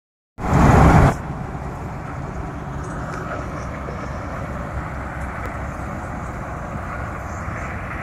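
Dhiman combine harvester running steadily as it works along the crop edge: a continuous low engine drone with a haze of machinery noise. A loud rush of noise fills the first second before the steady running sound.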